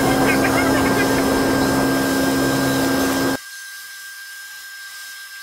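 Loud, steady mechanical whirring with a constant low hum and a faint high tone, which cuts off abruptly about three and a half seconds in to a much quieter steady hiss.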